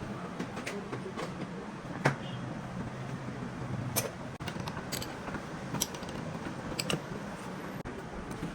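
Scattered sharp clicks and taps of metal parts and hand tools being handled during a diesel pump repair, over a steady low hum. The loudest click comes about two seconds in.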